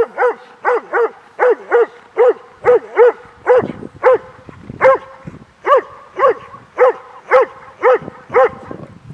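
Doberman barking in a steady run of short, sharp single barks, about two a second. It is guard barking at a stick-holding helper during protection training.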